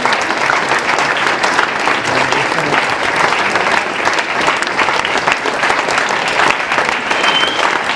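Audience applauding: many hands clapping in a steady, unbroken stream.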